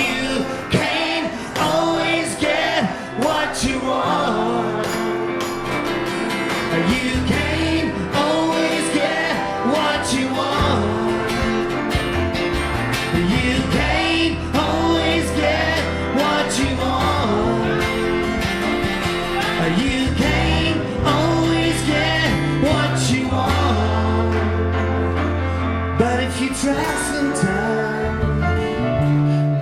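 Live band playing a rock song, with a drum beat, bass notes and guitar.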